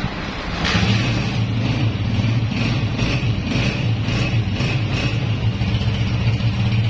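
Honda CG 125 single-cylinder four-stroke engine starting and running at a steady idle, coming up under a second in. The engine is freshly rebuilt with a new piston and rings, cam gear and rockers.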